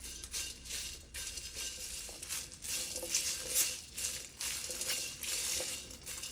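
Whole spices dry-roasting in a wok, stirred with a spatula: repeated rattling, scraping swishes of seeds against the pan, about one or two a second.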